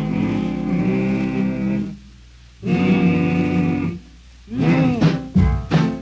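Opening of a late-1940s rhythm-and-blues 78 rpm record: a vocal group holds harmonized chords, broken off twice by short pauses, then the band comes in with a bouncing swing beat near the end.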